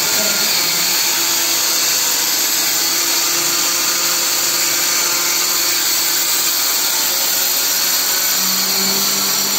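A corded hand-held electric power tool running steadily without a break, its motor noise loud and hissy.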